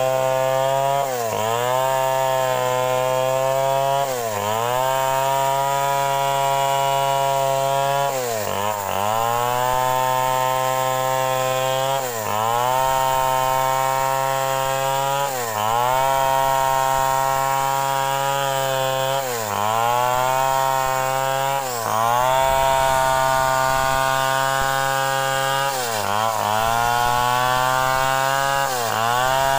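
Two-stroke Stihl chainsaw running at high revs while cutting into a wooden log. Its engine pitch dips briefly and recovers about every three to four seconds as it loads in the cut.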